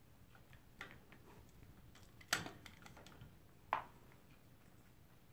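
Toy poodle chewing a dental chew: a few sharp crunches about a second and a half apart, the middle one loudest, with fainter clicks between.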